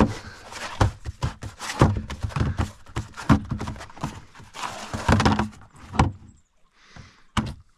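Rapid knocks, clatter and rustling as a folded plastic fish measuring mat is opened out and laid flat on an esky lid, settling down after about six seconds, with one more sharp click near the end.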